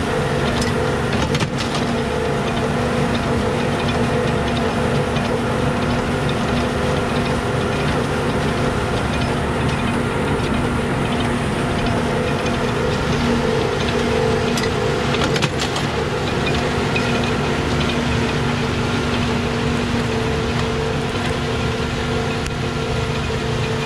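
Small square baler and the tractor pulling it running steadily while baling straw, a constant hum with a couple of sharp knocks, about a second and a half in and again about fifteen seconds in.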